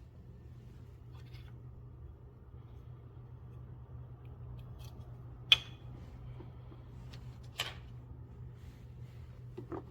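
Three short, sharp clicks or knocks over a steady low hum; the loudest comes about halfway through and rings briefly, a second follows a couple of seconds later, and a smaller one comes near the end.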